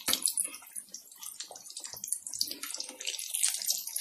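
Soya-granule-coated vegetable cutlets deep-frying in hot oil in an aluminium kadhai: a busy, irregular sizzle and crackle of bubbling oil.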